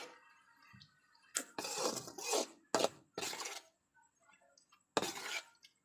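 A spatula scraping and clinking against a kadai while stir-frying chopped amaranth greens, in about five short, rough scrapes with sharp starts.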